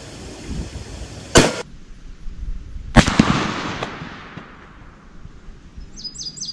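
A scoped bolt-action rifle fires once, a sharp crack about a second and a half in. About a second and a half later a second loud crack follows, dying away in a long rolling echo.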